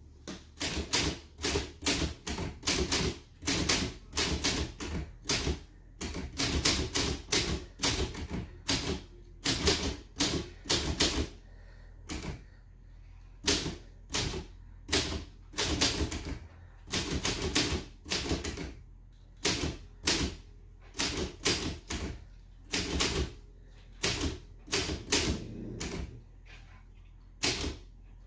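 Restored old Imperial manual typewriter being typed on: sharp key strikes in quick irregular bursts, with short pauses between words.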